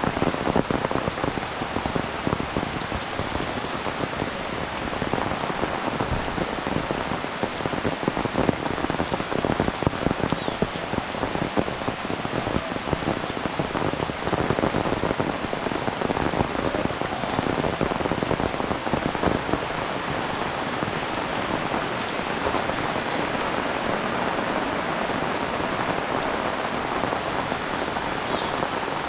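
Heavy rain falling steadily, a dense, even patter of many close drop impacts.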